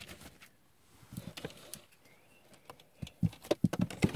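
Tinsel garland being handled and wrapped around a large plastic action figure: scattered rustles and light clicks, coming thicker and louder near the end.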